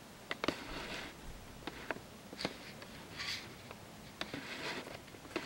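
Handling noise: scattered sharp clicks and a few short soft rustles as the camera is moved about, at one point brushing against an animal's fur.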